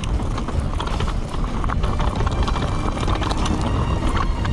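Orbea Wild FS electric mountain bike ridden over rough ground: irregular knocks and rattles over a steady rumble, with heavy wind noise on the microphone.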